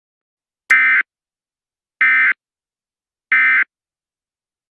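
Three short bursts of Emergency Alert System SAME digital data, about 1.3 s apart: the end-of-message (NNNN) code that closes an EAS alert.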